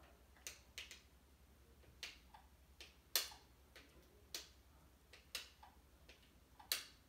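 Sharp, irregular plastic clicks, about ten of them at uneven gaps, from a small handheld plastic toy being worked by hand; the loudest comes about three seconds in.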